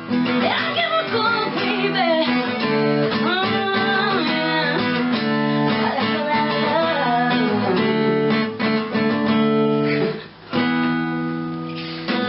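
A song with strummed acoustic guitar and a singing voice, ending on a held final chord that cuts off at the very end.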